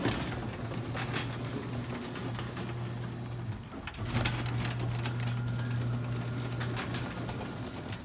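Garage door opener motor running with a steady hum. It cuts out for a moment about three and a half seconds in, then runs again and winds down near the end. The break fits the opener stopping and reversing the door when a foot breaks the safety-sensor beam.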